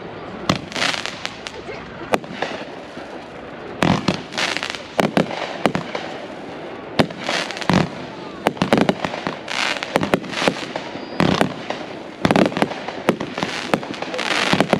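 Fireworks display: a string of sharp bangs at irregular intervals, broken by several longer hissing, crackling bursts.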